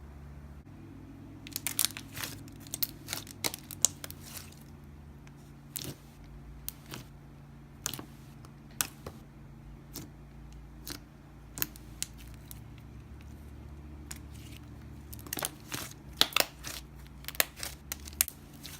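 Slime being handled and pressed, giving sharp clicks and crackles: a dense run of them near the start, single clicks every second or so, then another dense run near the end.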